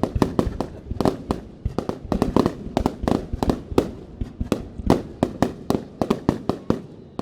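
A rapid barrage of aerial firework shells bursting, a quick run of sharp bangs at about four or five a second with short echoes between them.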